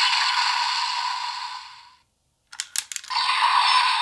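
Electronic sound effect from the small speaker of a DX Primitive Dragon Wonder Ride Book toy, fading out about two seconds in. A few quick plastic clicks follow as the book is snapped open, and the toy's audio starts up again.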